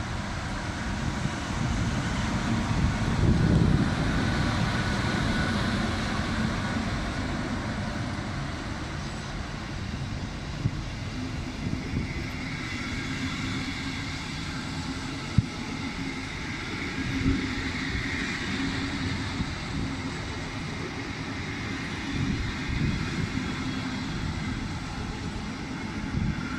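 GYSEV class 430 (V43) electric locomotive passing at low speed, loudest about three to four seconds in, then a long string of passenger coaches rolling by with a steady rumble and occasional sharp clicks.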